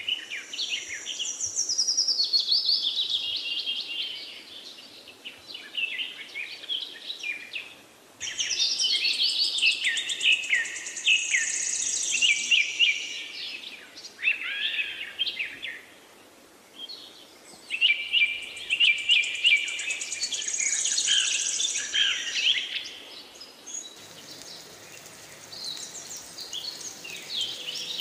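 Birds singing: many chirps and trilled phrases, in bursts of a few seconds with short lulls between them.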